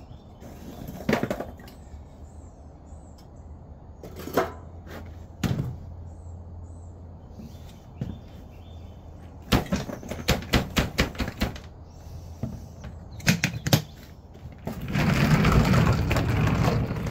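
Lumps of charcoal being handled for a charcoal smoker, knocking and clattering. There are a few scattered knocks, a quick run of about eight knocks about ten seconds in, then a continuous rattling rush near the end as charcoal is poured.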